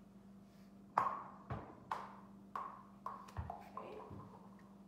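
A run of about eight sharp knocks, irregularly spaced over three seconds and starting about a second in, each with a short ring.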